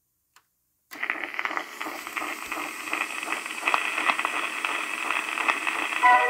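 Crackle and hiss from the lead-in groove of an early 1900s cylinder record, with scattered clicks, played through a portable boombox's speakers. It starts about a second in, after a faint button click, and the first notes of the music come in near the end.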